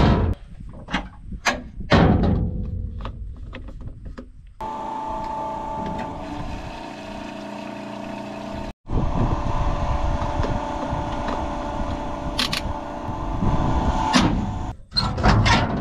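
A run of sharp clanks and knocks, then a steady machine hum with a few clicks, and knocks again near the end.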